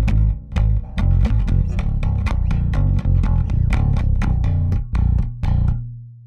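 Warwick Vampyre SN-5 five-string electric bass with active MEC pickups, played as a quick run of plucked notes, about four or five a second. Near the end the playing stops and a last low note rings on, fading.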